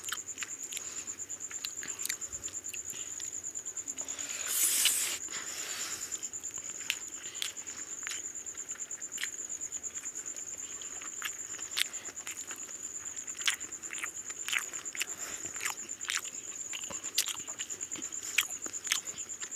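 Close-up eating sounds of two people eating rice and mutton curry by hand: chewing, lip smacking and wet mouth clicks, scattered irregularly, with a brief rush of noise about five seconds in. A steady high-pitched whine runs underneath throughout.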